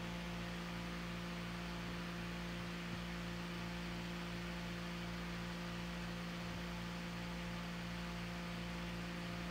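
Steady electrical mains hum over a faint hiss.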